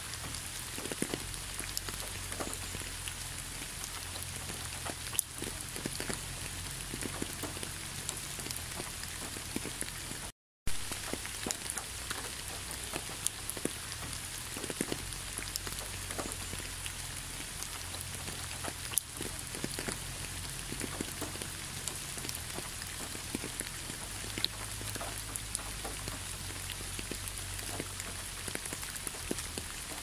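Steady rain falling, with many separate drops ticking through a constant hiss. The sound drops out completely for a moment about ten seconds in.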